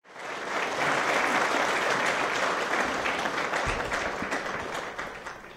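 Audience applauding. The clapping swells up quickly and holds steady, then thins out and dies away near the end.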